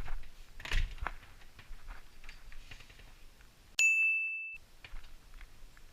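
A single bright ding about four seconds in, a clean bell-like tone lasting under a second with the background dropped out around it, like an edited-in sound effect. Before it, a few faint knocks and footsteps.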